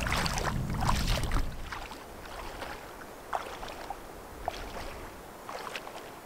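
Bare feet wading through shallow river water, splashing; loudest in the first second and a half, then fainter scattered splashes as the wader moves off.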